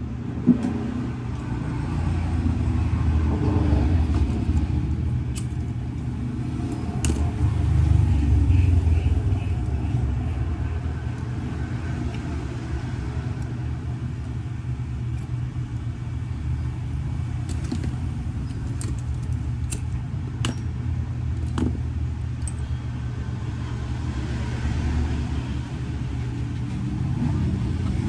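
A steady low mechanical rumble, like a motor running, swelling twice early on, with a few sharp clicks scattered through it.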